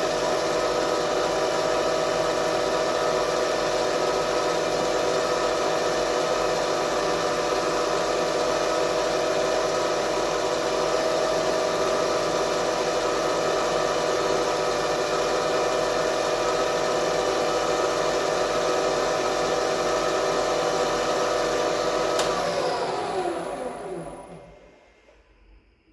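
Knee mill's spindle and motor running at a steady speed, then switched off near the end, the pitch sliding down as the spindle spins to a stop.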